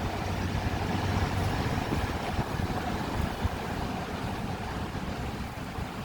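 An engine running steadily under a low rumble, with wind noise.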